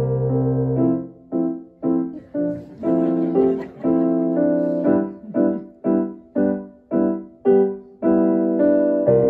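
Piano accompaniment in silent-film style. A held chord gives way, about a second in, to short detached chords about two a second, each dying away, and settles into a held chord again near the end.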